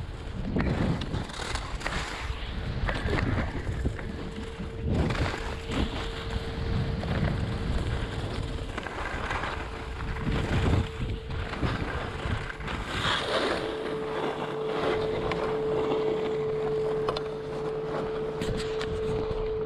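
Skis hissing and scraping over packed snow through a run of turns, with wind rushing over the microphone. A steady tone sounds throughout and grows louder in the last several seconds.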